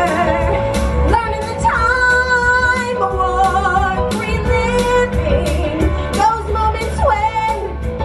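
Background music: a pop song with a female singing voice and a steady beat.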